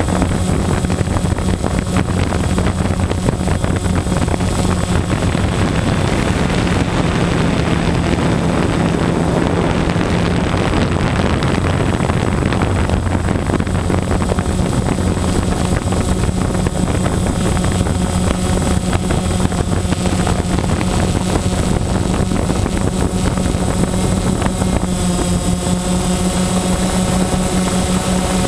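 Small engine and propeller running steadily close to the microphone, with wind noise. About 25 seconds in, the engine note changes as higher tones come in.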